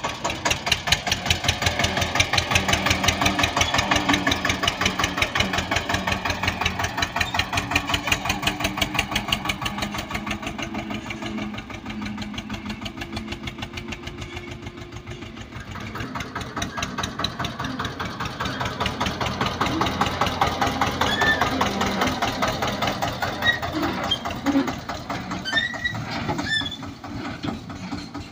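Eicher 242 tractor's two-cylinder air-cooled diesel engine running under load, pulling a heavily loaded trolley, with a steady rapid firing beat. It grows louder and fades twice as the tractor drives past.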